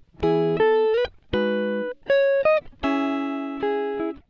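Outro music: a plucked guitar playing a short run of chords and single notes, each struck and left to ring, with a couple of quick upward slides between notes.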